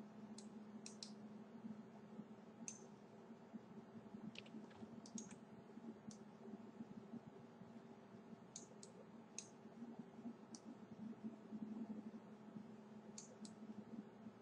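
Faint computer mouse clicks, a dozen or so at irregular intervals, over a low steady hum.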